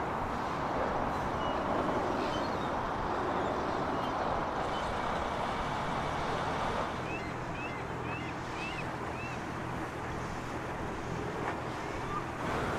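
Steady rushing noise of a sailboat motoring, with wind on the microphone; a low steady hum comes in about halfway through. A few short, high, rising chirps sound briefly in the middle.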